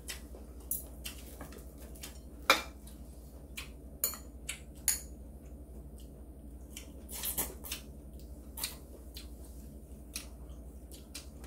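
Metal chopsticks and spoons clicking and scraping against ceramic bowls and plates while eating: scattered sharp clicks every second or so, the loudest about two and a half seconds in.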